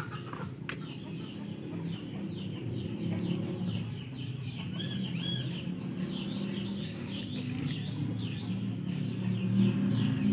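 Chickens clucking, with many quick, high, falling chirps.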